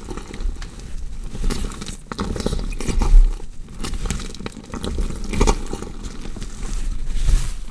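Gory body-dissection sound effect: a continuous run of wet, irregular crunching and squelching, like flesh and tissue being cut and pulled apart, with louder crunches about three, five and a half and seven seconds in.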